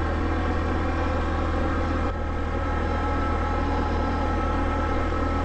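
Can-Am ATV engine running steadily under load while climbing a steep gravel road, with a brief dip about two seconds in.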